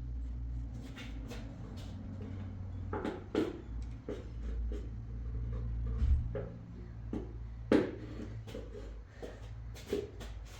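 Objects being handled and set down, a handful of sharp knocks and clunks scattered through, over a steady low hum.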